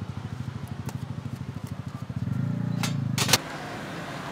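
A motor running with a low, fast, even pulse. About two seconds in it gets louder for about a second, then cuts off suddenly with a couple of sharp clacks.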